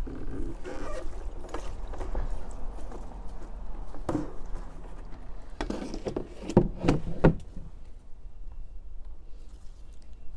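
Handling noise: scattered rustles and knocks over a low steady rumble, with a single sharp knock about four seconds in and a quick run of sharp knocks about six to seven seconds in.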